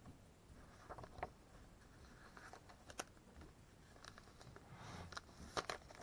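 Faint handling noise of comic books being picked up and shuffled: soft rustles and light taps and clicks, a few scattered through and a small cluster near the end.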